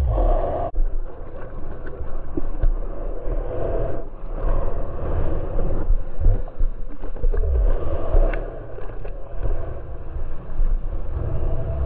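Ocean water sloshing and splashing around a camera held at the water's surface, with uneven low thuds and rumble as small waves slap against it.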